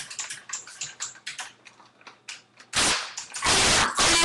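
A string of light clicks, then about two and a half seconds in a sudden loud pop as a clear plastic airsoft rifle fires a BB, followed by a second of loud noise.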